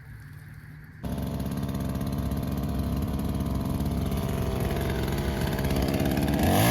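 Two-stroke chainsaw running at idle, coming in suddenly about a second in, then revving up near the end.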